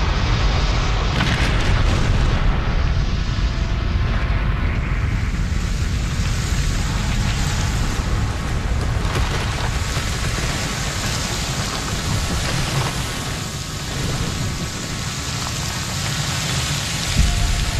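Film sound effect of a violent ground quake unleashed by a superpower: a continuous deep rumble under a dense hiss of shaking earth and debris, easing a little in the last few seconds.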